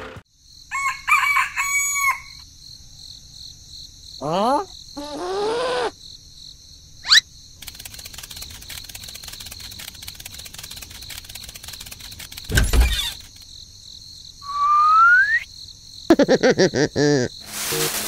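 A string of cartoon-style sound effects over a steady, high background trill: rising whistle glides, a thump about two-thirds of the way through, and near the end a rooster crowing.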